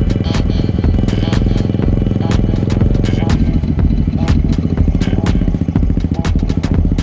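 Motorcycle engine running steadily, mixed with background music that has a regular beat of sharp hits.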